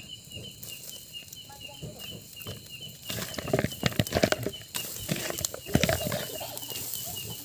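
Charcoal grill fire with a wire rack: a run of sharp crackles and clattering knocks, busiest from about three to six seconds in. Under it a faint high chirp repeats about three times a second.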